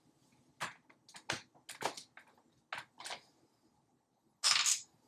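Plastic light panels being handled and fitted to a wall: a string of sharp clicks and taps, then a louder, brief rasping scrape near the end.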